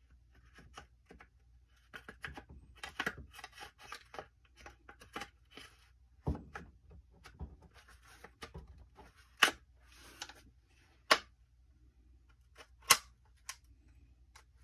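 Handguard of a Norinco Type 97 rifle being worked back onto the gun by hand: scattered light scrapes, rattles and knocks of the parts against each other. In the second half come three sharp clicks, a second and a half to two seconds apart, as it clicks into place.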